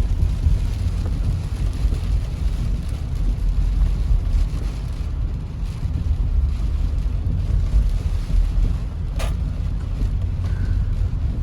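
Car driving on a highway in heavy rain, heard from inside the cabin: a steady low road rumble with a hiss of rain over it, and one sharp click about nine seconds in.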